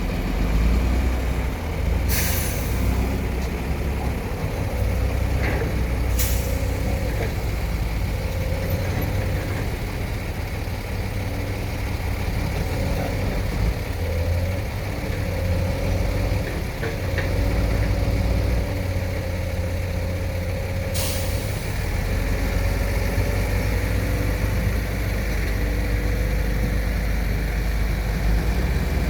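Excavator's diesel engine running steadily with a wavering whine, broken by three short hisses about two, six and twenty-one seconds in.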